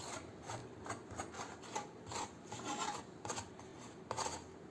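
A utensil spreading butter over a pizza base, a series of light, irregular scraping strokes.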